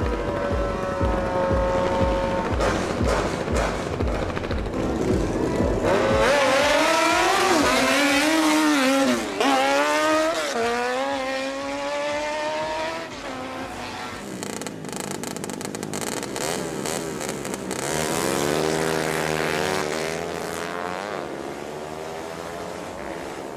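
Motorcycle engines revving hard in drag racing. First a sport bike is held at high revs through a burnout, then bikes accelerate off the line, the engine note climbing and dropping again and again through the gear changes.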